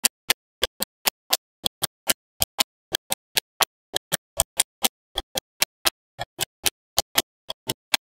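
Magnetic balls snapping onto one another one after another: sharp clicks at about four a second, with silence between them.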